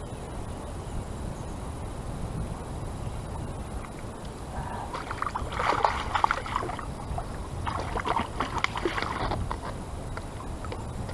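Steady low rumble of wind and moving river water. Two bursts of crackling noise come through it, about five and eight seconds in.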